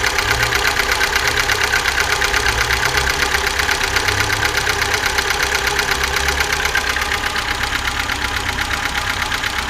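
VAZ-2107 four-cylinder engine idling with a fast, steady, even clatter over its low running hum. The owner can't tell whether it is the valves, a worn timing chain or the camshaft; a mechanic took it for worn camshaft lobes that keep the valve clearances from holding, which points to an overhaul.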